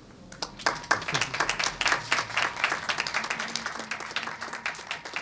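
Small audience applauding by hand, beginning about half a second in and slowly tapering off toward the end.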